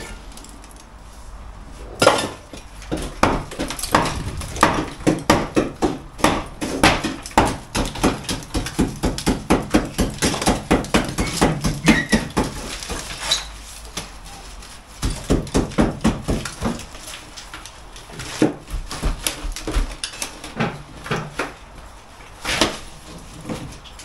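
Blockwork being broken out of a cavity wall opening: a run of sharp knocks and clinks at about three a second, then scattered knocks and clatter as broken concrete block and plasterboard pieces are pulled free.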